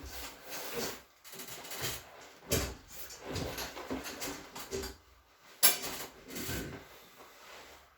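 A person turning over onto their back on a chiropractic treatment table: irregular rustling and shuffling of body and table, with one sharp knock a little past the middle.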